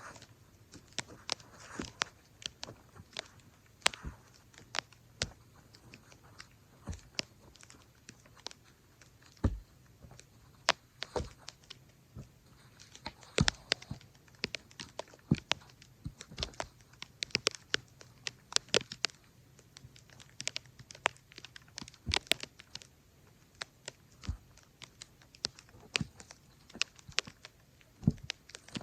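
Firewood being split with an axe: irregular sharp cracks and knocks, a few much louder than the rest, with crunching and tearing between them.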